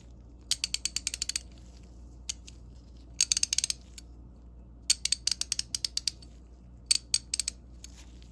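Stanley 91-929 3/8-inch drive ratchet with a 45-tooth gear, its pawl clicking over the gear teeth as the handle is swung back and forth, in four short runs of rapid clicks.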